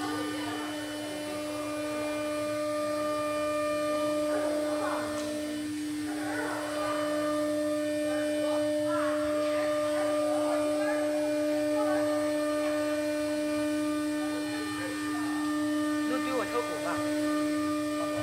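Steady machine hum at one pitch, with an overtone, from a running auto-tool-change CNC router, with faint scattered workshop sounds over it.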